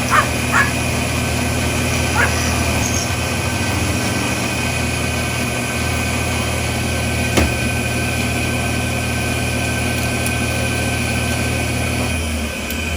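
Small milling machine running steadily while cutting a wire-clearance slot in a turn signal switch stock, with a few short squeals from the cutter early on and a single click about seven seconds in. Its low motor hum drops away near the end.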